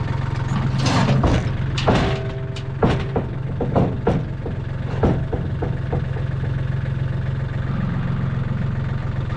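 Skid steer engine idling steadily, with a run of sharp metal clanks and knocks over the first six seconds or so, some ringing briefly.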